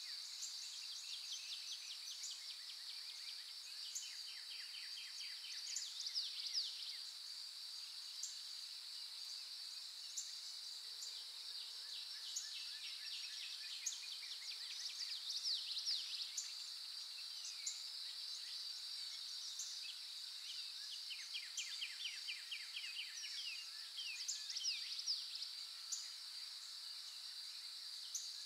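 Outdoor insect and bird ambience: a steady high-pitched insect drone, with trains of rapid chirps and short bird calls coming and going every few seconds.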